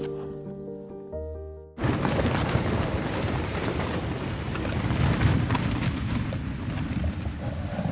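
Background music ends about two seconds in, cut off by strong wind buffeting the microphone: a loud, gusting low rumble with hiss on top.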